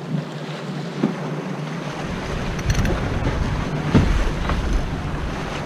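Wind and water rushing past a Corsair F-27 trimaran under sail, with wind buffeting the microphone, heavier from about two seconds in. A single thump about four seconds in.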